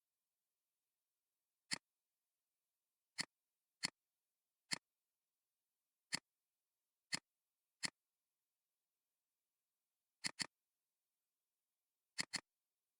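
Computer mouse buttons clicking about eleven times at irregular intervals, including two quick double-clicks near the end, with dead silence between the clicks.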